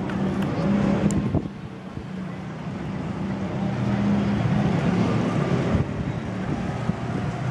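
A low, steady engine or motor hum with wind noise on the microphone.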